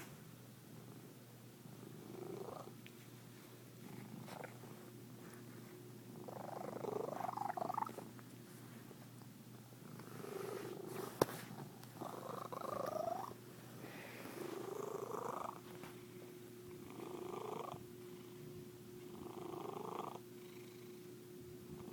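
A cat's unusual purr: a steady low purr with a pitched, gliding sound riding on it about every two seconds, some rising and some falling. One sharp click about 11 seconds in.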